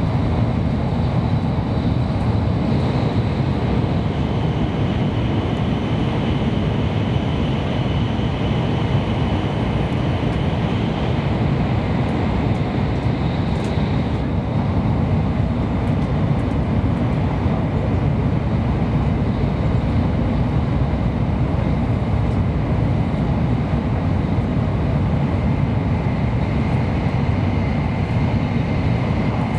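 Steady running noise heard inside the passenger cabin of a 700-series Kyushu Shinkansen train travelling at speed: a constant low rumble, with a faint high whine that comes and goes.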